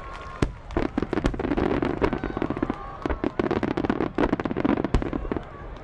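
Fireworks going off: many sharp pops and bangs, with a dense stretch of rapid crackling in the middle that thins out near the end.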